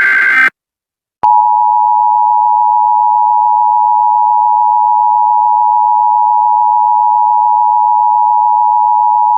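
Emergency Alert System signalling: the tail of a SAME digital header burst, a brief gap, then the EAS two-tone attention signal (853 and 960 Hz sounded together) starting about a second in and holding steady and loud.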